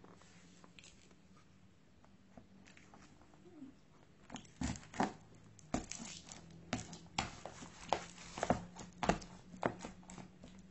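Chocolate crunching and cracking under the soles of flat shoes being trampled on it: a quiet start, then about a dozen sharp, irregular crunches from about four and a half seconds in.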